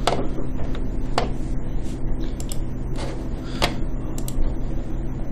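A handful of sharp computer mouse clicks, spaced irregularly, over a steady low hum.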